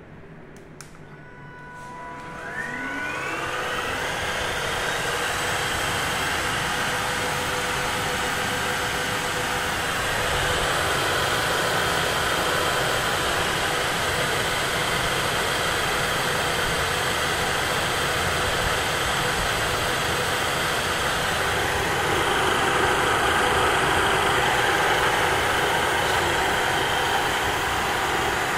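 Kitfort KT-5238-1 cordless wet vacuum starting its self-cleaning cycle: a click and a few short electronic tones, then the motor spins up with a rising whine and runs steadily. The running sound grows a little louder twice along the way.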